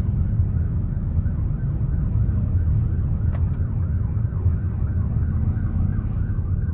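Car running along the road, its engine and road noise a steady low rumble inside the cabin, with a faint yelping emergency-vehicle siren rising and falling in quick repeated sweeps.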